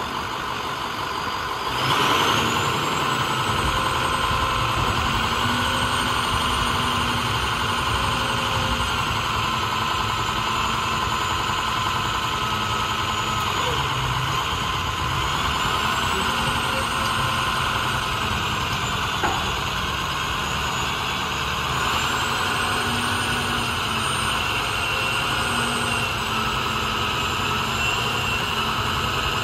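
Roll-off garbage truck's diesel engine running, stepping up in loudness about two seconds in, with a whine that rises and falls in pitch several times.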